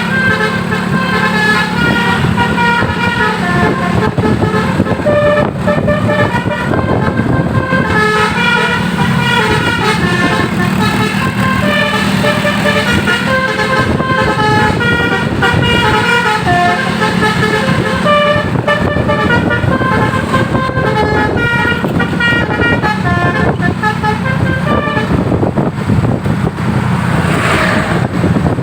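Basuri 'telolet' multi-tone bus horn playing a continuous tune of short, quickly changing notes over the bus's steady engine drone, with a brief rising sweep near the end.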